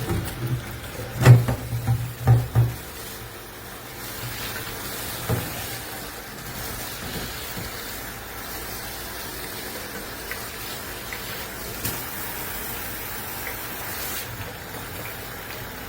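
Water running from a faucet sprayer head into a sink as a steady rush, with a few dull knocks in the first three seconds.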